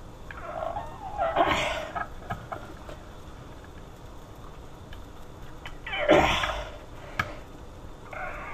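A man grunting with effort twice, in short breathy strained bursts, while forcing a boiled-soft push-lock hose onto its barbed AN fitting by hand, which is hard to do.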